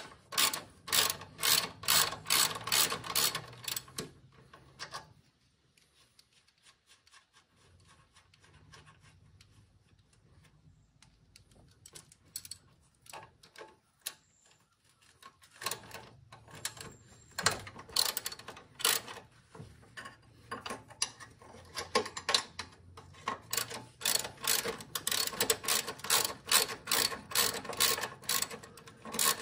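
Hand socket ratchet clicking at about three clicks a second as the bolts of the PTO clutch bracket on a zero-turn mower are backed out. The clicking stops a few seconds in, leaving about ten seconds of faint rubbing and handling noise, then starts again.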